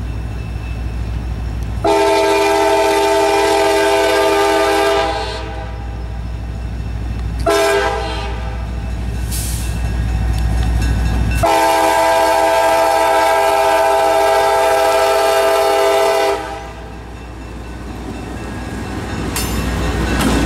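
CSX diesel locomotive sounding its multi-note air horn while approaching a grade crossing: a long blast, a short blast, then another long blast, over the steady low rumble of the engine. Near the end the locomotive passes close by, and the engine and wheel noise rises.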